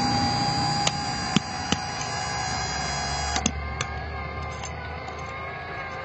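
Hydraulic pump of an RC model dump truck whining steadily as it raises the tipper bed, its tone changing about halfway through. A few sharp clicks sound over it.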